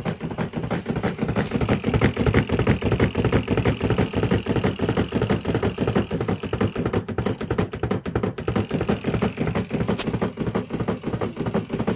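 Washing machine running with a sack of powder detergent inside, its drum and cabinet rattling and knocking rapidly and without a break.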